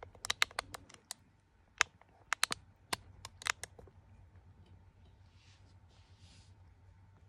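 A quick irregular run of sharp clicks in the first four seconds, then two soft rasping brushes of a tabby kitten licking its fur.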